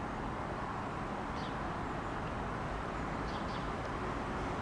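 Steady low rumbling background noise of a railway station platform, with a few faint short high chirps about a second and a half in and again near three and a half seconds.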